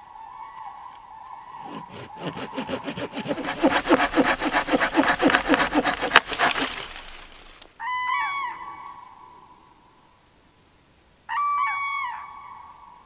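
A hand saw cutting through a dead log in quick, regular strokes for about six seconds. Then common cranes trumpeting, two loud bursts of calls a few seconds apart, each trailing away.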